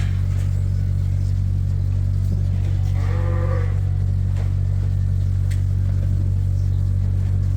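A sheep bleats once, a short wavering call about three seconds in, over a steady low hum.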